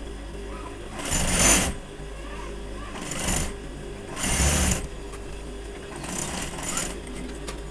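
Industrial single-needle sewing machine stitching cotton fabric in four short runs, each under a second, with brief pauses between them.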